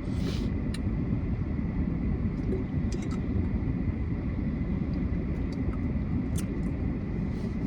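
Steady low rumble of a car, heard from inside the vehicle, with a few faint small clicks.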